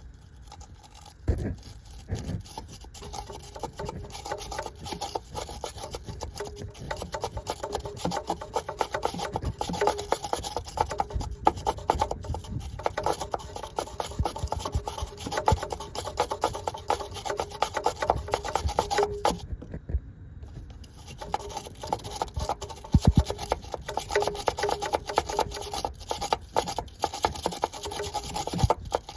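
Rapid back-and-forth rasping strokes of someone scrubbing rust off a corroded ground strap connection on a 1993 Mazda Miata that won't crank. The strokes run steadily, with a short pause about twenty seconds in.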